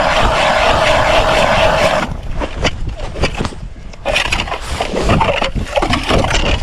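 Cordless drill spinning an ice auger through lake ice: a steady motor hum with the grinding of ice shavings, which stops abruptly about two seconds in. Scrapes and knocks follow as the auger is pulled out of the hole and handled.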